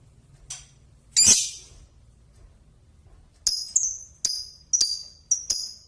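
Lovebird calling: a faint chirp, then a loud harsh screech about a second in. After a pause, from about three and a half seconds, it gives a quick series of sharp, high-pitched chirps.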